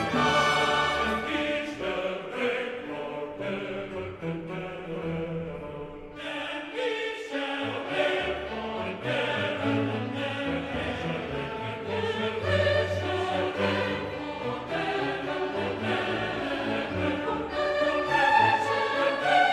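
Background music: orchestral music with choir-like voices.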